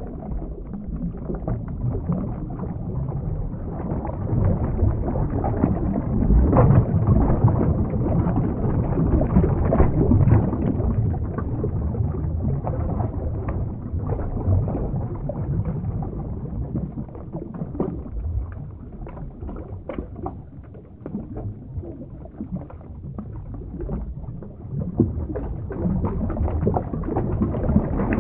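Underwater ambience sound effect: a steady low rumble of moving water, swelling and easing.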